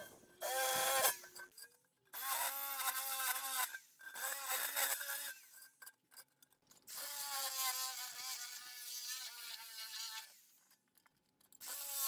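Electric drill running in short bursts as it bores holes through the thin steel of a pail can. There are four bursts, the longest about three seconds, and another starts at the very end. Each burst is a whine that wavers in pitch as the bit cuts.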